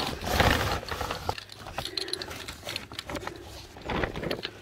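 Poly tarp with grommets rustling and crinkling as it is pulled and handled over a vehicle, with heavy breathing.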